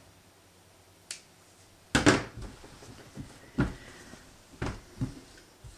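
Scissors snip once, then a loud sharp clack about two seconds in, followed by a few softer thumps and rustles as a linen garment is lifted and flipped over on a wooden table.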